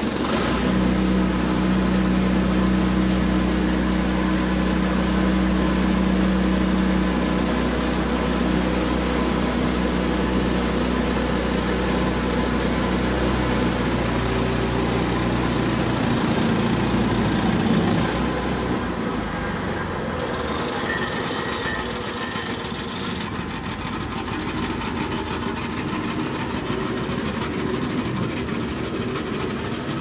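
Woodland Mills HM122 portable bandsaw mill running, its gas engine under load as the band blade cuts along an ash log. About eighteen seconds in the steady engine note changes and the sound drops a little, as the cut ends and the mill runs lighter.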